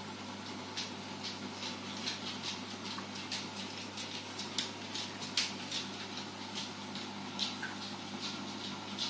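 Reef aquarium running: a steady pump hum and hiss, with irregular small splashes and drips of water, several a second.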